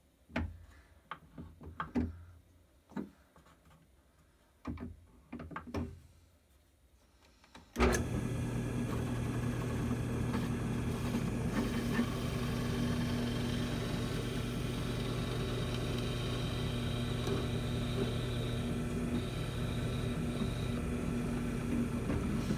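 Chuck key clicking and knocking in the chuck of a Craftsman benchtop drill press as the drill bit is tightened. About eight seconds in, the drill press motor switches on and runs steadily with a hum and a faint high whine while the bit bores through a small wooden pen blank.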